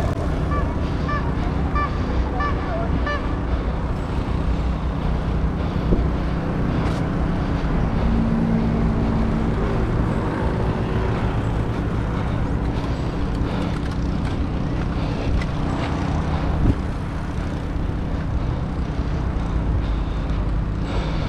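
Street traffic going by: a steady rumble of engines and tyres, with one engine hum standing out for a couple of seconds about eight seconds in.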